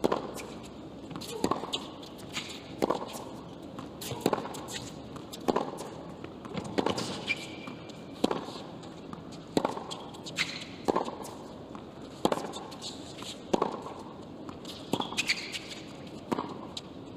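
Tennis ball struck back and forth by two players' rackets in a long baseline rally on a hard court, a sharp hit about every second and a half.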